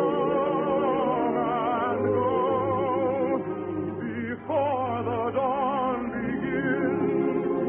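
Operetta singing with orchestra: voices hold long notes with a wide vibrato, and a new phrase starts about four and a half seconds in. The recording is an old radio broadcast, thin and dull with the treble cut off.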